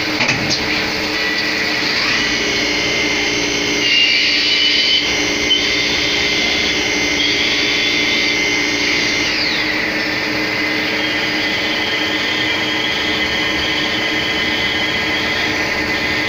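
Arrow CNC lathe running a machining cycle: a steady mechanical whine with several high tones. The pitch rises about two seconds in and slides down about ten seconds in, as the spindle changes speed.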